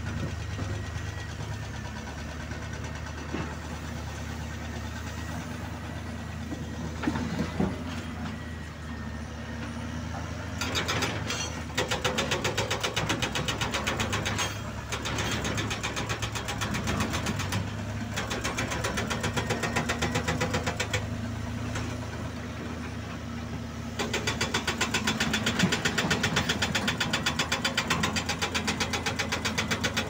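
Heavy diesel earthmoving machines running steadily. From about ten seconds in, a hydraulic rock breaker on an excavator arm hammers rock in runs of rapid, even blows with short pauses between them. The hammering is the loudest sound.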